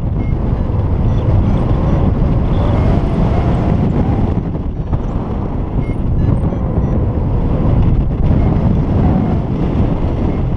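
Wind rushing over the camera microphone during paraglider flight: a loud, steady, low buffeting rumble from the airflow.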